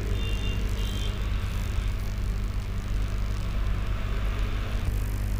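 Steady low background rumble with a faint even hiss and no speech, with a few faint short high tones in the first second.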